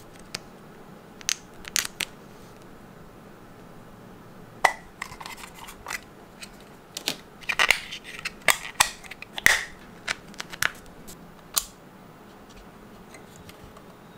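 A battery being pressed into a small plastic battery box: a string of sharp plastic clicks and short scrapes, a few at first and thickest in the middle.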